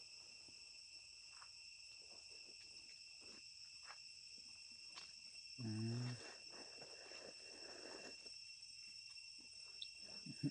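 Steady chorus of insects, crickets or cicadas, holding several high-pitched tones, with scattered faint clicks. About halfway through, a single short, louder low-pitched call cuts in.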